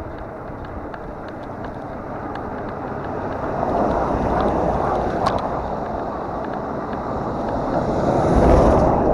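Wind buffeting the microphone over the rolling noise of an electric fat-tire bike being ridden. The noise swells about four seconds in and again near the end, with one sharp click about five seconds in.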